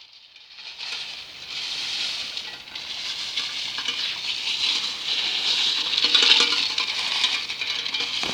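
BMX bike riding over leaf-covered dirt: the tyres rustle and hiss through the wet leaves, with light clicking, and the noise grows a little louder as the bike picks up speed.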